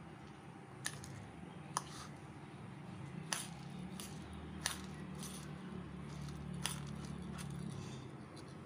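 A metal fork stirring washed raw rice in a plastic bowl: soft scraping through the grains, with about five sharp clicks as the fork strikes the bowl. A low steady hum runs underneath.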